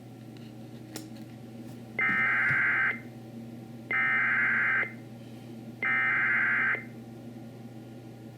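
Emergency Alert System SAME header on NOAA Weather Radio: three identical one-second bursts of high-pitched digital data tones, about a second apart, over faint receiver hum and hiss. It is the coded header that opens a flash flood warning broadcast.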